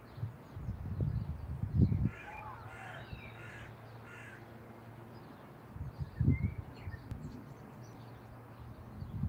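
A bird calling, about four calls in a row from about two seconds in, with a short rising chirp later. Low rumbles of wind on the microphone come in gusts near the start and again near the middle, louder than the calls.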